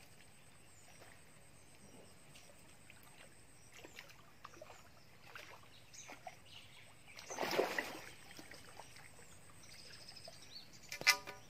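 A hooked fish splashes briefly at the surface close to the bank about halfway through, the loudest sound here. Around it are faint scattered ticks and small bird chirps, and near the end a sharp click.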